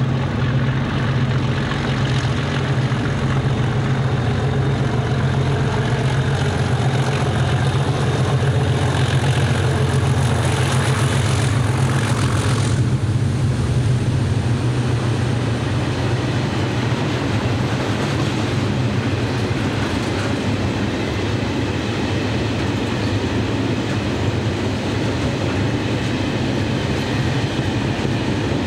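A pair of English Electric Class 37 diesel locomotives working hard at the head of a hopper train as it passes, their V12 engines giving a loud, steady low drone. About halfway through, the higher-pitched engine noise cuts off sharply as the locomotives go by, leaving the low engine note and the rumble of the wagons rolling past.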